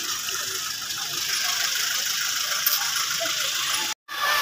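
Outdoor crowd ambience: faint, distant voices of many people under a steady hiss. The sound cuts out completely for a moment near the end.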